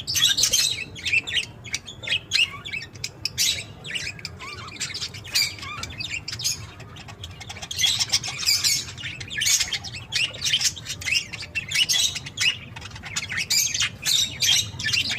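Budgerigars chattering, a continuous run of quick high chirps and squawks that grows louder in bursts every few seconds.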